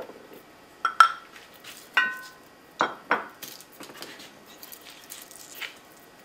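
Kitchen things being handled and set down on a wooden counter: four sharp clinks and knocks, the first two with a short ringing tone, followed by a few softer taps.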